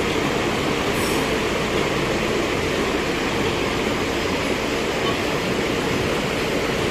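Steady running noise of workshop machinery, an even, unbroken whir with no press strokes or hammer blows.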